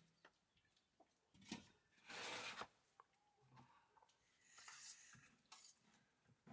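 Faint handling noises: a few light knocks and a few short rustling hisses as cooking pots and a plastic jerrycan are moved about.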